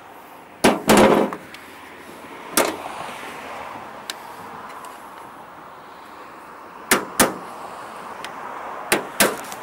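Hand tools knocking and clanking against metal lawn mower parts during a repair: sharp knocks that come mostly in pairs, the loudest about a second in with a short metallic ring.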